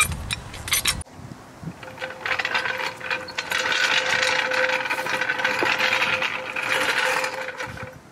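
Hand ratchet wrench clicking rapidly and steadily for several seconds as a nut or bolt on the truck's front suspension is turned, after a few separate clicks at the start.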